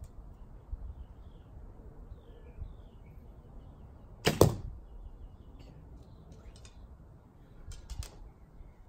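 A 64-inch Junxing Pharos II F261 recurve bow, its string fitted with silencers, shot about halfway through: a sharp release thump with a second strike a fraction of a second later. Near the end come a few light clicks as the next arrow is taken from the hip quiver, and birds chirp faintly in the background.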